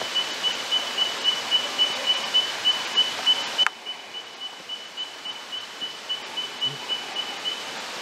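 Bell miners (bellbirds) calling: a steady string of high, clear, single 'tink' notes, about three a second. The notes drop suddenly in level a little under four seconds in and carry on more faintly.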